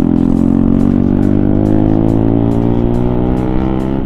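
Motorcycle engine pulling under acceleration, its pitch rising steadily, then dropping sharply at the end as the rider shifts up. A steady music beat plays underneath.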